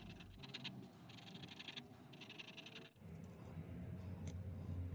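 Faint scratching of a fine-tip pen tracing an outline on baking paper, in two short runs of strokes. Just before the three-second mark it cuts off, and a low steady hum follows, with a single sharp tick about a second later as paper and masking tape are pressed down by hand.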